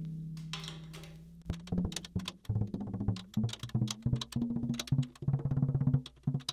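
Soft felt mallet tapping the new Evans batter head of a Ludwig Supraphonic metal snare drum near each tension rod, with no bottom head fitted, so the low tone dies quickly. A low note rings and fades over the first second, then quick runs of light taps follow from about a second and a half in. These are lug-by-lug pitch checks while the head is matched to an even pitch.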